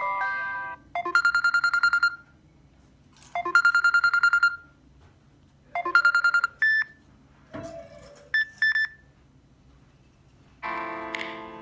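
Samsung Galaxy Note 9 ringtone: a rapid pulsing electronic trill sounding in three bursts of about a second each, followed by a few short chirps and a low swoop. The tail of one melodic ringtone is heard at the start, and another melodic ringtone begins near the end.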